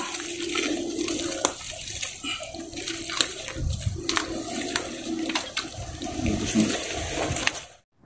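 Wet mud squelching and sloshing as gloved hands and boots work in a mangrove crab hole, with scattered sharp clicks; it cuts off abruptly near the end.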